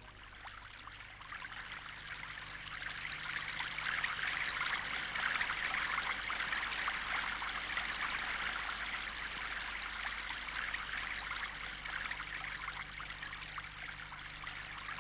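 Running water in a stream, a steady splashing trickle that fades in over the first few seconds.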